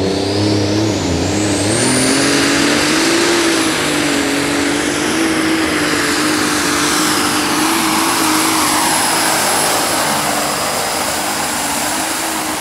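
A Super Stock pulling tractor's multi-turbocharged engine running at full power under load. A high turbo whistle rises over the first two seconds and then holds steady above the loud engine note.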